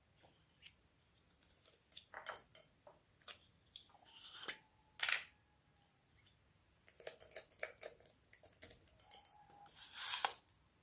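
Slime being worked by hand: irregular sticky clicks, crackles and squelches, with a louder squelch about five seconds in and a longer one near the end.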